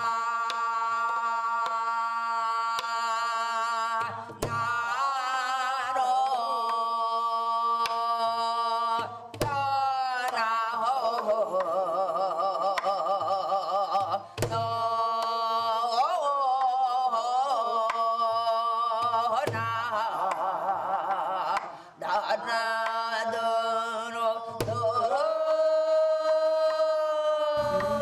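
Korean gueum: a voice singing a wordless melody in long held notes with heavy vibrato, over deep drum strokes every few seconds.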